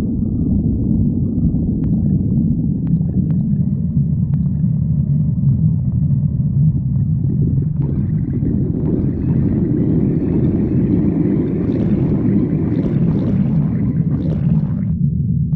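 Human stomach growling: a continuous low rumble that grows brighter and fuller about halfway through, then drops back abruptly near the end.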